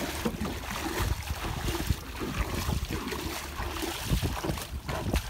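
Water splashing and sloshing around a person's legs as he wades through shallow water, dragging a small metal boat, with uneven low thumps throughout.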